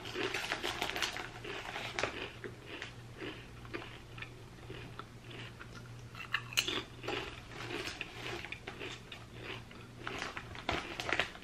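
A person biting into and crunching potato chips with the mouth close to the microphone, with a sharp crunchy bite about six and a half seconds in.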